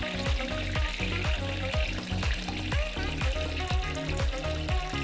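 Samosas deep-frying in hot oil with a steady sizzle, under background music with a steady beat of deep drum hits about twice a second.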